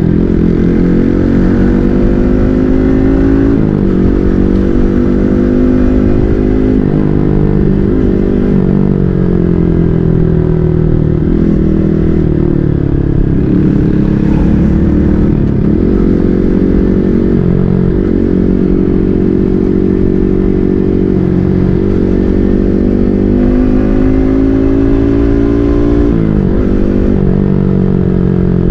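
Yamaha MT-15's single-cylinder engine through an SC Project full-system aftermarket exhaust, riding on the road. The engine note climbs in pitch and drops sharply again and again as the bike accelerates and shifts through the gears.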